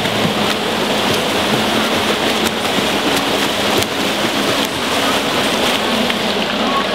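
Water splashing from several swimmers doing freestyle side by side: a steady, dense churning that sounds much like heavy rain.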